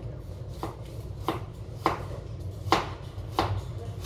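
Kitchen knife chopping a carrot on a cutting board: about six separate, unhurried chops, roughly one every two-thirds of a second.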